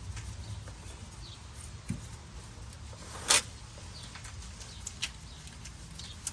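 Faint clicks and scraping of hands working a plastic wiring connector under a truck, with one louder, sharp knock about three seconds in.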